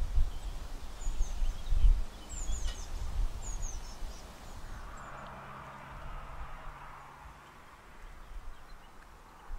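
Birds chirping with short high notes over an uneven low rumble that is loudest in the first two seconds and then fades to a quieter outdoor background.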